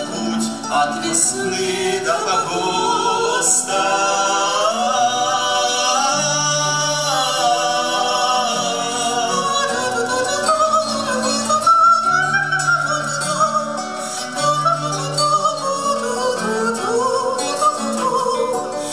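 A woman and a man singing a bard song in duet, accompanied by two acoustic guitars, a nylon-string classical guitar and a steel-string guitar.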